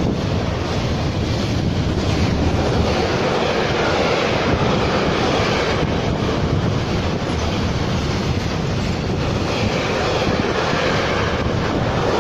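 Freight train of wagons carrying road semi-trailers rolling past close by: a loud, steady rumble of wheels on rail.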